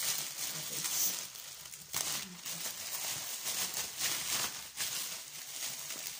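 Black plastic courier mailer pouch being handled and crumpled, a crinkly rustle with a few sharper crackles about one, two and four seconds in.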